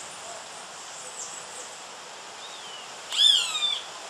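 Young hawk giving one loud, harsh call that falls in pitch, about three seconds in, with a shorter, fainter falling call just before it.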